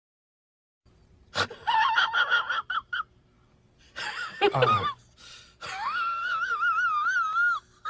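High-pitched, voice-like sound effects: a few short squeaky gasping bursts, then one long wavering squeal lasting about two seconds.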